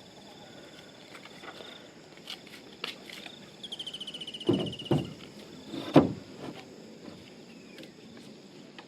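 Insects calling: a steady high buzz, then a rapid pulsed trill lasting a little over a second. Several dull knocks come in the middle, the loudest about six seconds in.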